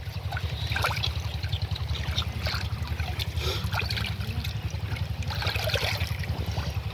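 Muddy water splashing and sloshing in short irregular bursts as hands grope through it for catfish, over a steady low rumble.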